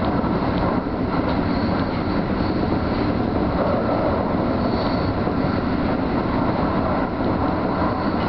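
Keio Line electric train running at speed, heard from inside the front car: a steady rumble of wheels on rail with motor noise.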